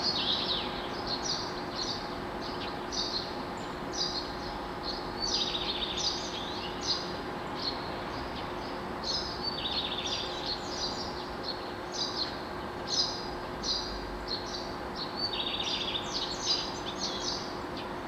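Dawn chorus of songbirds: many short, rapid chirping phrases overlapping one another without a break, over a steady background noise and a faint low steady hum.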